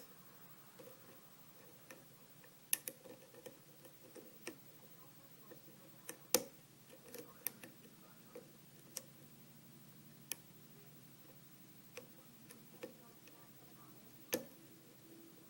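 Lock pick working the pins of a Schlage pin-tumbler lock under tension: scattered, irregular sharp metallic ticks and clicks as the hook lifts and sets pins, over a faint steady hum.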